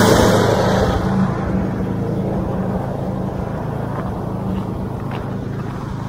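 An engine running with a steady low hum. A loud rushing noise over it dies away in the first second or so, and the sound slowly gets quieter after that.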